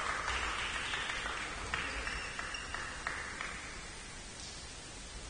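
A few people clapping in a large echoing sports hall, the clapping trailing off after about three seconds.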